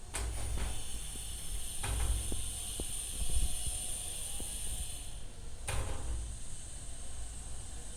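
Steady air hiss over a low machine hum, with three brief swishes about a quarter second, two seconds and six seconds in.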